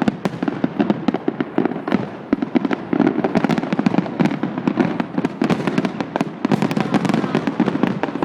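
Fireworks going off in a rapid, continuous barrage of bangs and crackles, many per second.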